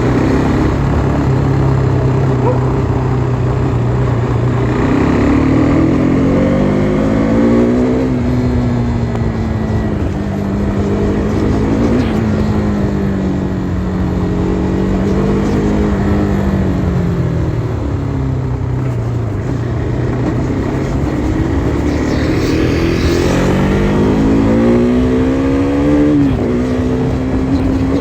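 KTM RC 390's single-cylinder four-stroke engine under way, revving up and easing off several times. The pitch holds low at first, climbs about five seconds in and settles, drops back low past the middle, then climbs again, with a quick dip and recovery near the end.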